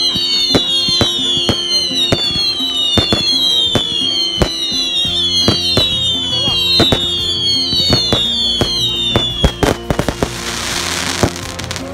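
Fireworks display: a continuous run of sharp bangs and crackles with many high whistles, each falling in pitch, one after another. The whistles die out near the end, and a short burst of hiss comes as the cracks thin out.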